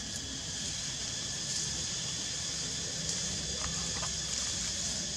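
Steady outdoor background with a continuous high-pitched hiss and a low hum, and a couple of faint clicks a little before the end.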